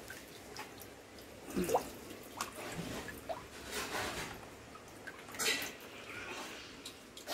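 Water dripping and splashing from a rohu as it is lifted out of a plastic crate of water, with a few short bursts of splashing and handling.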